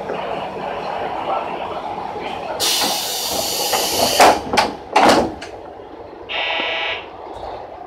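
Train passenger door closing: a loud hiss of air, then the door slides shut with a few knocks. About a second later comes a short buzz, over the steady hum of the standing diesel railcar.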